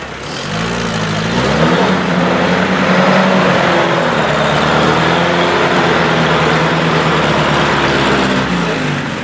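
Off-road vehicle engine pulling under load while manoeuvring in reverse. The engine note rises about a second in, holds steady, then eases off near the end.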